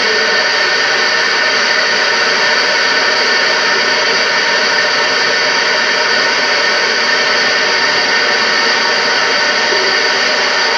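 Steady, loud hiss with faint steady tones beneath, unchanging throughout: noise on an old home-video soundtrack.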